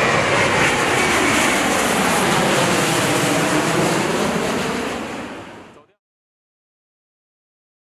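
A steady, rushing roar like a jet passing, with slow sweeping changes in tone, fading out about five to six seconds in and followed by dead silence.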